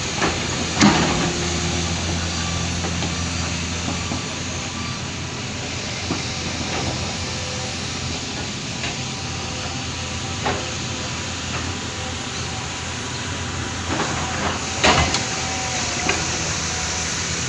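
Heavy earthmoving machinery running, a steady diesel engine drone under a hiss. There are sharp knocks about a second in and again a couple of times around fifteen seconds in.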